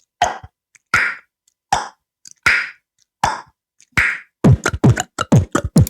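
Beatboxed imitation of a table tennis ball: sharp mouth-made pocks about every three-quarters of a second, then from about four and a half seconds in a quicker beatbox rhythm with bass kicks.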